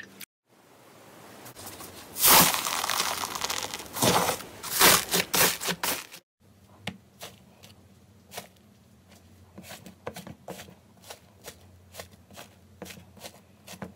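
Slime with foam beads being pulled and squeezed by hand, giving a loud, dense crackling and popping for a few seconds. It cuts off suddenly, and then comes a run of quieter, scattered sharp crunches as fingertips break a dry crust of sand.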